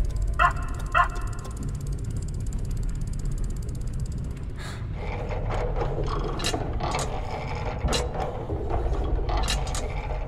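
Sound effects: two short yapping barks about half a second in. From about halfway, a busy run of clockwork clicking and ratcheting, like small gears and pawls working, over a steady low rumble.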